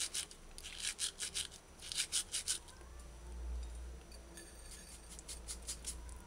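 Dried rosemary being ground and crumbled between the palms and fingers, a dry crackly rustle in short quick strokes that pause midway and pick up again near the end.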